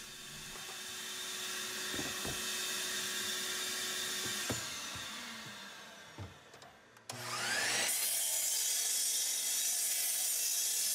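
Chop saw running, then winding down over a few seconds with a few light knocks. About seven seconds in it is switched on again, its motor whining up to speed, and it then runs steadily.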